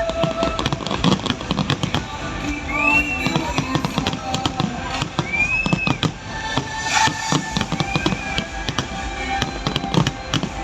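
Fireworks going off in quick succession, a dense run of bangs and crackling, with music playing underneath.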